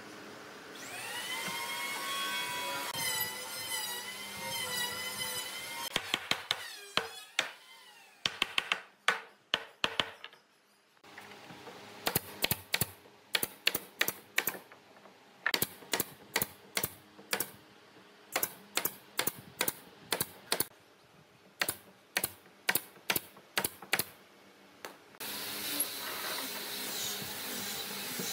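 A power tool's motor whines up to speed and runs, its pitch wavering under load, then stops. Next comes a long run of sharp knocks, mostly in quick pairs and triples. Near the end a motor starts running again.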